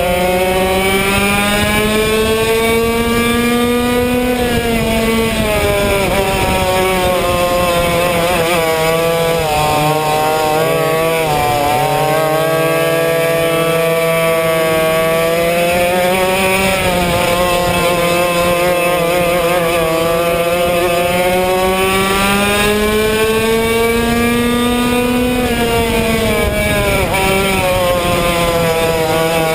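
Yamaha 100cc two-stroke kart engine at racing speed, heard onboard. Its pitch climbs and falls several times as the kart accelerates and slows for the corners, dropping lowest about ten seconds in.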